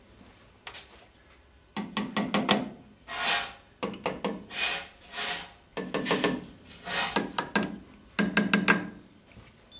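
A metal hand tool knocking and scraping at the oil-line control screws on a steam locomotive's running board. Short clusters of rapid clicks and knocks alternate with smooth scraping strokes.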